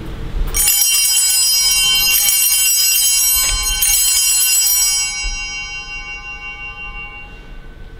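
Altar bells (Sanctus bells) rung at the elevation of the consecrated host: several small high bells ringing, shaken again a couple of times, then dying away over the last few seconds.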